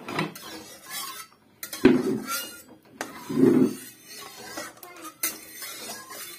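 Metal spatula clinking and scraping against a metal karahi while stirring in hot oil, with two louder knocks about two and three and a half seconds in.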